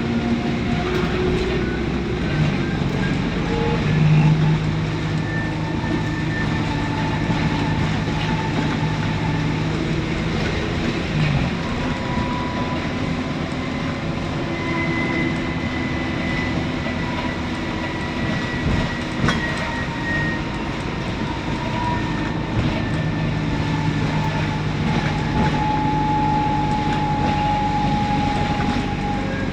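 Diesel-converted ADL Enviro400 double-decker bus running under way: a steady engine drone with a transmission whine that slowly rises and falls in pitch. A stronger low hum comes in about four seconds in and again near the end.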